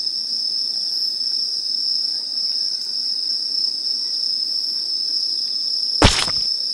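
A steady, unbroken high-pitched insect chorus, of crickets or other night insects in grass, with one brief sharp noise about six seconds in.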